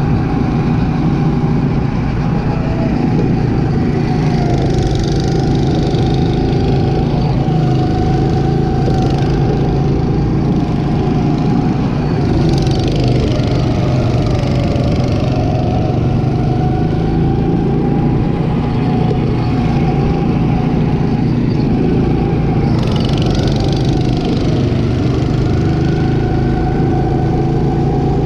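Go-kart's small engine running steadily at speed, heard from the driver's seat, with brief spells of hiss twice along the way.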